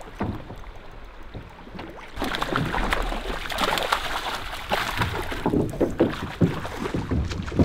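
A steelhead thrashing and splashing in a landing net at the water's surface, starting about two seconds in, with a few sharp knocks near the end.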